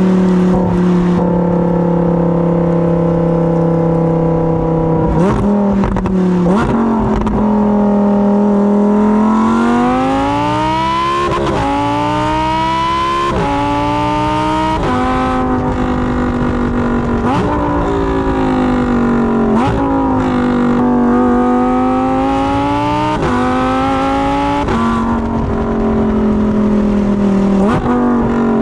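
2020 Lamborghini Huracán EVO's naturally aspirated 5.2-litre V10 exhaust, heard right at the tailpipe. It holds a steady note, then accelerates hard through the gears, the pitch climbing and dropping sharply at each upshift, and settles back to a steady cruise near the end.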